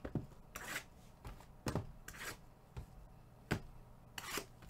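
Cardboard hobby boxes being handled and set down on a tabletop: about half a dozen separate knocks and short rustles at uneven intervals.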